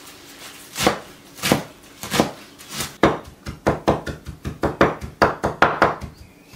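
Cleaver chopping fresh green herbs on a wooden cutting board: four slow, spaced strokes, then a quick run of about five chops a second that stops shortly before the end.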